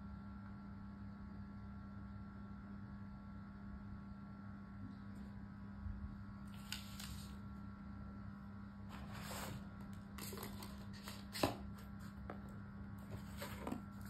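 Faint rustles and light taps of a white paperboard charger box and a printed paper manual being handled, the sharpest tap about eleven and a half seconds in, over a steady low hum.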